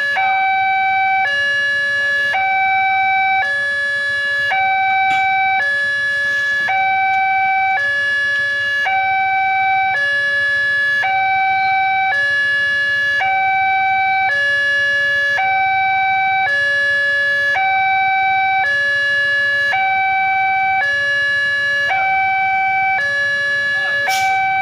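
Railroad level-crossing warning alarm from the horn loudspeaker on the signal mast: an electronic two-tone signal alternating evenly between a lower and a higher note, each held just under a second, sounding while the barrier is down to warn that a train is approaching. A brief sharp click comes near the end.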